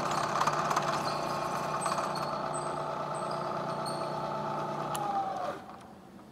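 Lagun vertical milling machine running with a fly cutter in the spindle, a steady hum with a busy whirring over it. About five seconds in the spindle is switched off and winds down, its pitch falling as it goes quiet.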